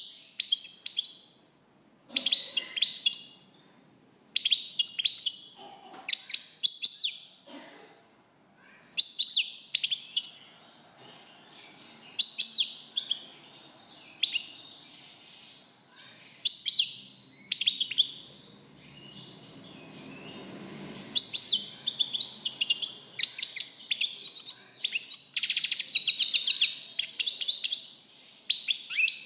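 European goldfinch singing: short bursts of quick, twittering song every couple of seconds, which run together into an almost unbroken stretch of song over the last third.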